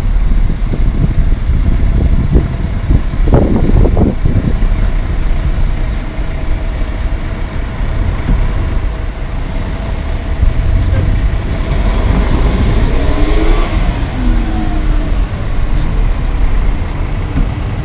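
CAT CT660 tandem dump truck's diesel engine running as the truck drives past and turns through an intersection, a heavy steady rumble with the engine note sweeping in pitch about two-thirds of the way in.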